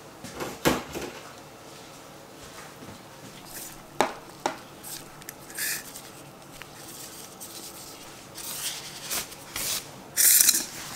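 Watercress dressed in vinaigrette being tossed by a hand in a plastic glove in a stainless steel bowl: wet leaves and glove rustling, with a few sharp knocks of the metal bowl. The loudest rustle comes near the end.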